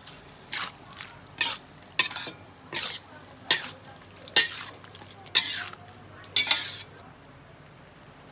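Spatula or spoon scraping and stirring food in a pan: about eight separate strokes, roughly one a second.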